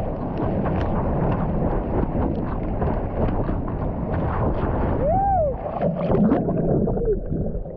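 Sea water splashing and rushing around a GoPro in the surf, with wind buffeting the microphone. A short call rises and falls in pitch about five seconds in.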